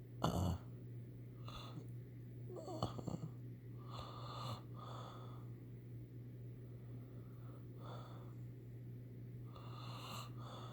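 Someone asleep snoring: a string of raspy breaths every second or two, with a sharp snort about a third of a second in and a rattling snore near three seconds, over a steady low hum.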